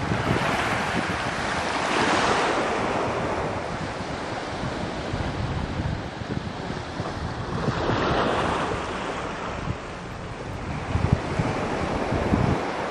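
Wind buffeting the camera microphone: a steady rushing with a fluctuating low rumble and a hiss that swells about two seconds in and again around eight seconds in.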